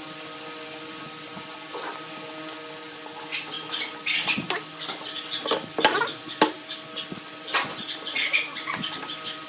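Irregular light knocks, clicks and scrapes, like small objects being handled, starting about three seconds in, over a steady electrical hum.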